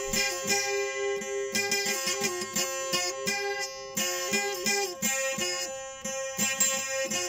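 Instrumental music: a plucked string instrument playing a quick, rhythmic melody over a steady held drone note.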